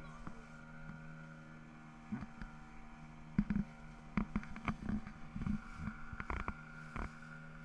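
Small outboard motor on an inflatable dinghy running at a steady pitch, with irregular knocks and thumps over the middle of the stretch.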